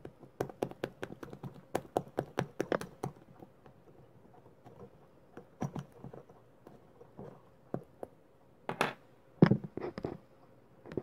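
A pointed metal-tipped tool jabbing and scraping at a parcel wrapped in packing tape: a quick run of sharp taps and ticks over the first three seconds, then scattered taps, and a few louder scratchy rasps of the tape about nine to ten seconds in.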